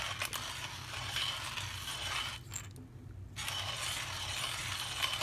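Coffee beans being ground in a hand-cranked manual coffee grinder as the handle is turned: a steady crunching, rattling grind that stops briefly about two and a half seconds in, then picks up again.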